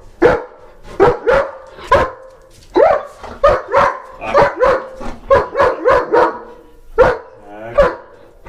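German shepherd protection dog barking repeatedly, about two barks a second in runs with short pauses, with one longer drawn-out bark near the end. This is the alert barking at the doorbell and front door that he is being trained out of.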